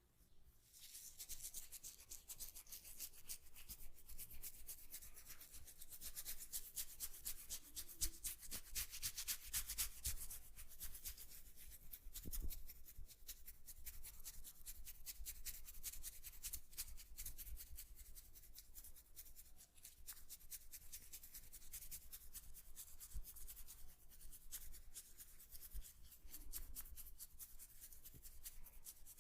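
Hands rubbing and scratching through hair on the scalp during a head massage, in fast continuous strokes, with a single soft knock about twelve seconds in.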